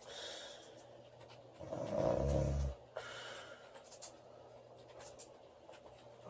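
A woman snoring in her sleep: one loud, buzzing snore about a second long, starting about a second and a half in, with a soft breathy hiss just before and just after it.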